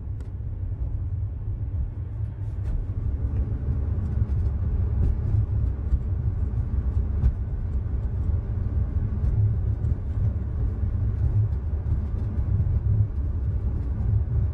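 Cabin noise inside a moving ULTra personal rapid transit pod: a steady low rumble from its rubber tyres running on the guideway, with a faint steady hum above it and occasional light clicks, getting a little louder after the first few seconds.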